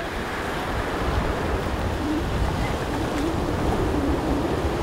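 Ocean surf breaking and washing up the beach, with wind rumbling on the microphone.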